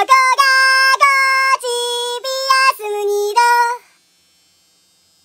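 A high-pitched, synthetic-sounding sung melody of short held notes in quick succession, stopping abruptly about four seconds in.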